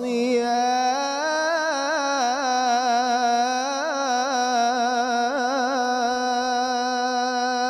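Solo male munshid singing a Ramadan farewell inshad into a microphone, drawing one syllable out into a long melisma: the voice turns through quick ornamental trills for several seconds, then settles on a steady held note.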